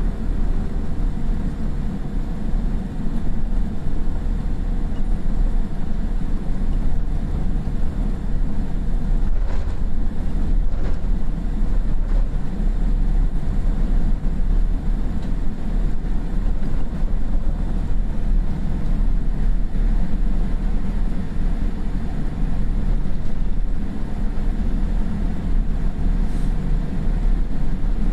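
Cabin noise inside a Boeing 787-8 taxiing after landing: a steady low rumble from its Rolls-Royce Trent 1000 engines at idle, with faint steady tones and a couple of faint knocks about ten seconds in.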